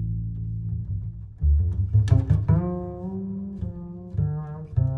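Background music carried by low plucked and bowed string notes over a heavy bass line, changing note every second or so.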